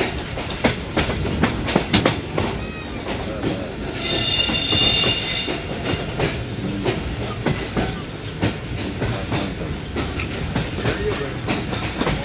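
Passenger train coach running at speed, heard from inside: a steady rumble with wheels clicking and knocking over rail joints and points. About four seconds in there is a high squeal lasting about a second and a half.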